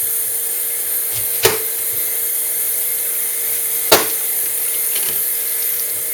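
Kitchen tap running steadily while a knife cuts an onion into quarters, with two sharp knife strikes on the cutting board, about a second and a half in and again near four seconds.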